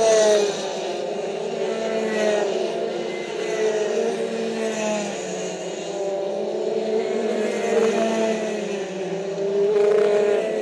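Rotax Max 125cc two-stroke kart engine running hard, its pitch rising and falling as the throttle is opened and eased through the corners. A brief knock comes near the end.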